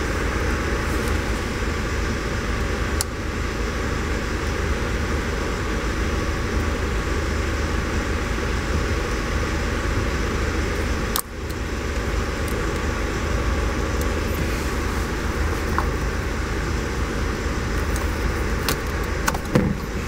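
Steady fan-like rushing noise in the workshop, which briefly drops out about eleven seconds in. Over it come a few light clicks as plastic coolant hose connectors and clips are handled.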